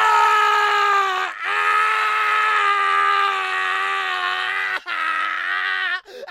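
A man screaming in long, loud, sustained cries, each held on a steady pitch. There are three in a row, with only a short catch of breath between them.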